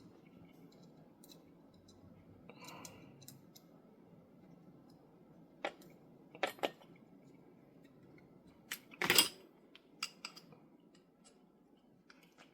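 Small metal clicks and taps as a screw is set into a revolver's frame and tightened. There are a few scattered clicks and a double click about six and a half seconds in. The loudest clatter comes about nine seconds in, followed by lighter ticks.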